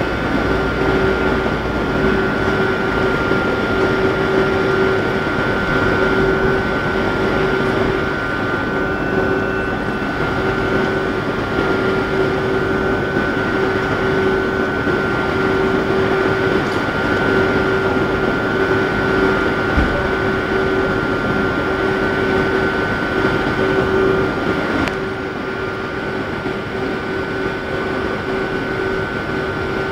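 Steady hum of a stationary electric commuter train's onboard equipment, two held tones over a noise bed; the lower tone cuts out about 25 seconds in and the sound drops a little.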